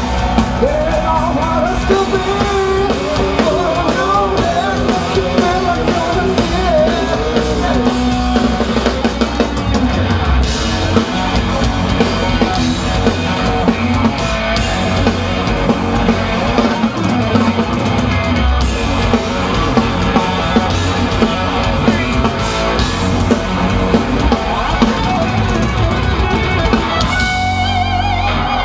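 Live rock power trio playing loudly, heard from the audience: electric guitar, electric bass and a drum kit.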